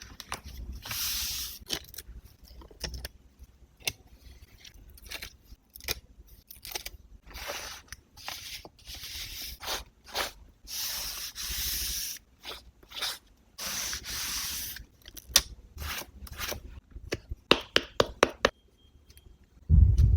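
Close-up paper and stationery handling for a journal collage: repeated stretches of paper rubbing and rustling, each about a second long, with many small sharp taps and clicks between them.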